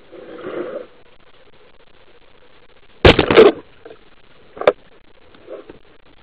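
Band-powered speargun fired underwater: a loud sharp snap with a short clattering tail about halfway in, as the rubbers release and drive the shaft, followed by a single sharp click over a second later.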